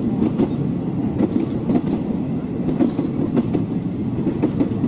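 Train running along the rails, a steady rumble with the wheels clattering irregularly over the track, cutting off suddenly near the end.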